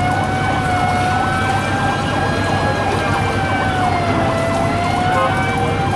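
A long, unbroken horn blast whose pitch wavers slightly up and down, over a steady rumble of idling engines and traffic.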